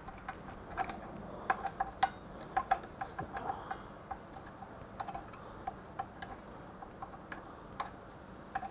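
Light metallic clicks at an irregular pace, some with a brief ring, as a 6 mm Allen key works the front fork's axle pinch bolts loose.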